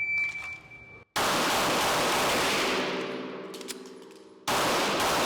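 A shot timer's start beep, one steady high tone, followed about a second in by rapid 9mm pistol fire from a Glock 47 MOS, loud enough that the shots run together into one long, slowly fading blast. A second loud burst of fire starts near the end.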